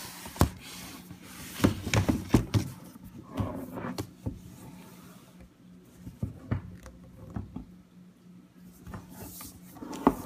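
Packaging being handled as a boxed laptop is taken out of its shipping package: scattered knocks and rubbing, busiest in the first few seconds and sparser after.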